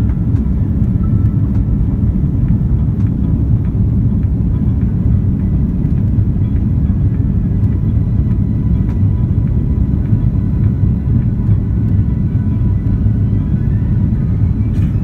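Airliner cabin noise during the climb after takeoff: the steady low rumble of the jet engines and airflow, heard from inside the cabin.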